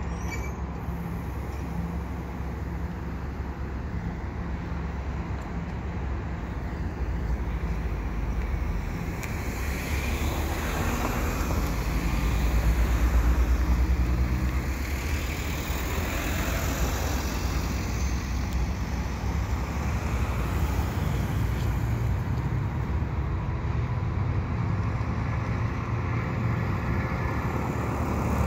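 Steady low rumble of a stopped commuter train's diesel locomotive running at the platform, with a car's engine growing louder as it pulls up close about halfway through.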